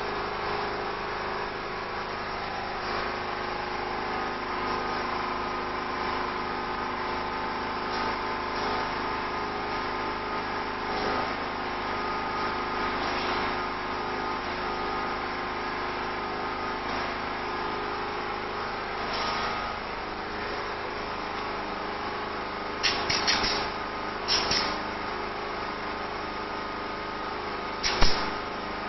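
Steady machine hum, with a pneumatic C-ring clip gun firing short, sharp air bursts in small clusters over the last six seconds as wire cage panels are clipped together, the loudest near the end.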